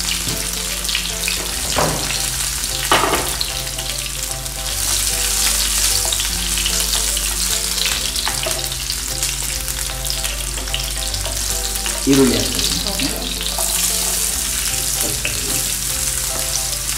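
Chopped onion frying in hot oil in a non-stick pan: a steady sizzle, with the spatula scraping and stirring through it a few times, on its way to golden brown.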